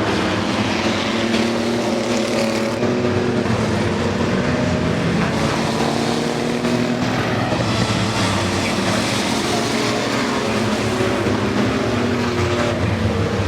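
A pack of enduro race trucks running on the track together, several engines sounding at once at steady revs, their pitches drifting slightly up and down.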